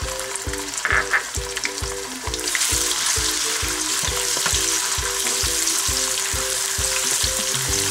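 Chopped onion frying in hot oil in a nonstick wok while a wooden spatula stirs it; the sizzle grows louder about two and a half seconds in. Background music with a steady beat plays underneath.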